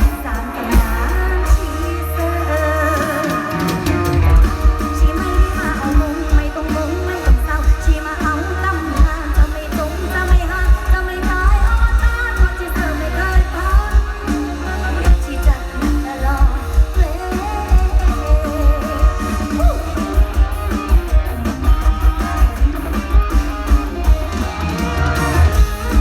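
Live mor lam band music through a large PA system: a steady, heavy bass-drum beat under a plucked, guitar-like melody, with singing.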